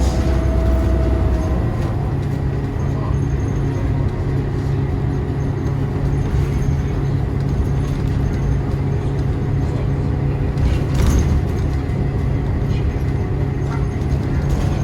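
2014 New Flyer XDE40 hybrid bus running, with the steady drone of its Cummins ISL9 diesel and Allison hybrid drive. Faint whining tones fall in pitch at the start and rise again near the end, and there is a brief rattle about three-quarters of the way through.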